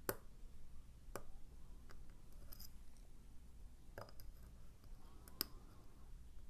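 Faint metallic clicks and ticks of a dimple pick and tension tool working the sliders and pins of an Evva ICS lock, with about four sharper clicks spread across several seconds.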